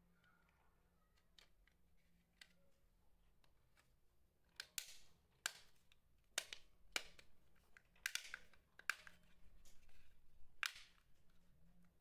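Plastic remote control case halves snapping shut as the hands squeeze along the seam. About ten sharp clicks of the retaining clips catching start about four seconds in, some in quick pairs.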